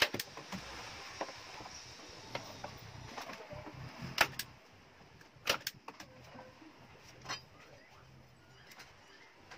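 A few sharp clacks of a hand staple gun firing into a mitred wooden frame corner, spaced a second or more apart, with light knocks of wood being handled on the saw table.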